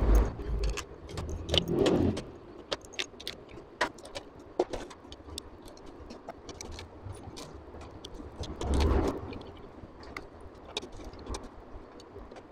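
Steel bolts clinking as they are set by hand into the bolt holes of a Honda CG125 aluminium crankcase, with many light metallic clicks and taps. Louder handling noises come at the start, about two seconds in and about nine seconds in.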